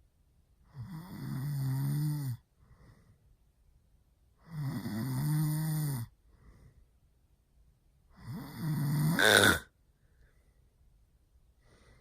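A man snoring really loud with his mouth open: three long, pitched snores a couple of seconds apart, the third swelling to its loudest just before it stops.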